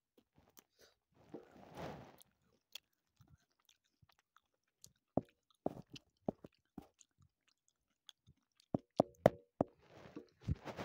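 Close-up mouth sounds of biting into and chewing a chocolate lollipop: scattered crunches and clicks, growing denser near the end, after a soft hiss about two seconds in.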